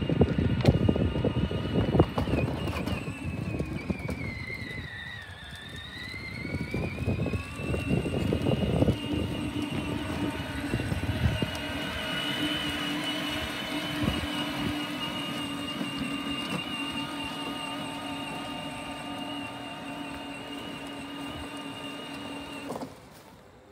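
Battery-powered ride-on toy UTV driving, its electric motor and gearbox whining as it tows a small wheeled trailer. There is loud clattering over the pavement for the first several seconds, and the whine dips in pitch and climbs back about five seconds in. It then holds steady until it cuts off suddenly near the end.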